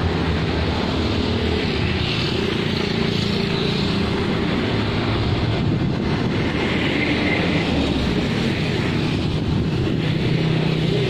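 Road traffic: cars and motorcycles going by, with a steady engine hum.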